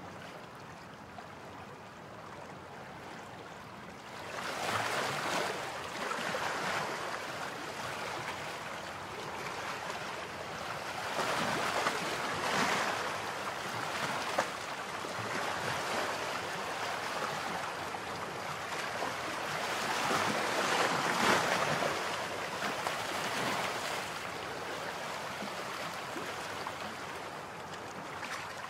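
Sea surf breaking on a beach: a steady wash of noise that swells as each wave breaks and fades between them, every few seconds.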